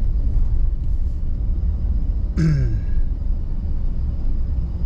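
Steady low rumble of road and engine noise inside a moving vehicle's cabin. About two and a half seconds in, a man's brief vocal sound falls in pitch, like a short grunt.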